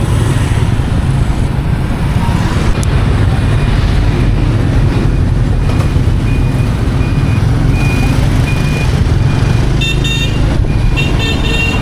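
Busy road traffic heard from within it: a steady loud rumble of engines and road noise, a faint short beep repeating through the middle, and vehicle horns tooting near the end.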